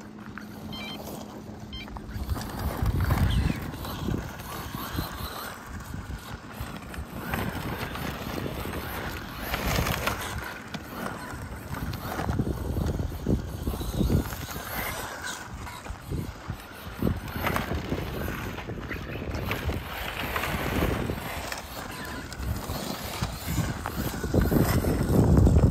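Losi Baja Rey 1:10 scale 4WD RC truck driving on gravel and grass: its brushless electric motor whines as it speeds up and slows, with the tyres crunching over loose gravel. Low wind rumble on the microphone comes and goes, loudest near the end.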